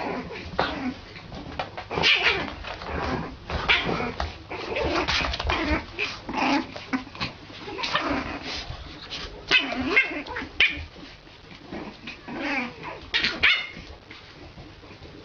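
An animal calling in many short cries that bend up and down in pitch, fading out near the end.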